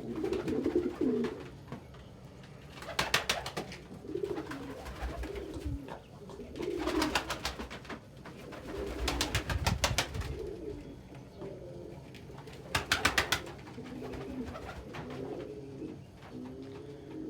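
Domestic pigeons cooing over and over, low rolling coos one after another. Four short bursts of rapid clicking break in every three to four seconds.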